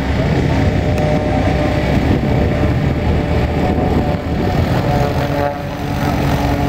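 Single-engine Cessna's piston engine and propeller running at taxi power, a loud steady hum with a slight dip about five seconds in.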